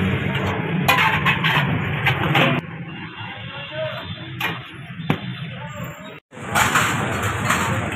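Busy street-stall background noise with a few sharp clinks of a steel ladle and steel plates. The noise drops quieter after a couple of seconds and cuts out for a moment about six seconds in.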